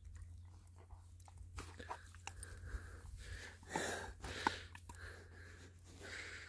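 Puppy chewing on a wooden stick: faint, irregular crunches and cracks of wood between his teeth, with a louder bout of crunching about four seconds in.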